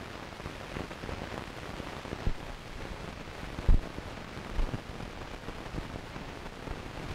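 Steady hiss with scattered low pops and crackles, the loudest pop about three and a half seconds in; it cuts off abruptly at the very end.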